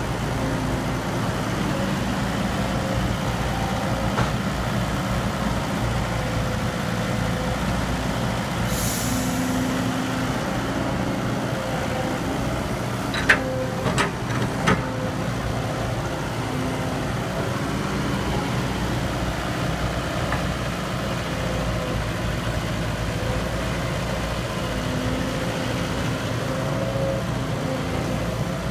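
Heavy diesel engine of an excavator running steadily while it digs and loads soil into a dump truck. A short hiss of air comes about nine seconds in, and there are a few sharp metal knocks around 13 and 15 seconds.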